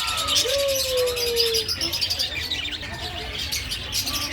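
Birds chirping busily, with one long, low, slightly falling coo about half a second in.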